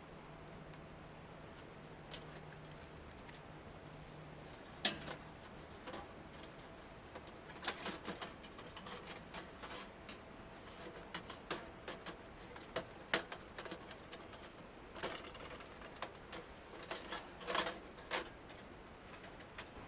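Irregular light clicks, knocks and metallic clinks of small objects being handled, coming thicker in the second half, with a faint low hum in the first few seconds.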